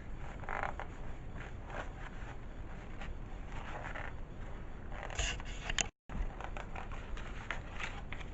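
Soft rustling and scraping of paper as the pages of a picture book are handled and turned, with a brief cut to silence about six seconds in.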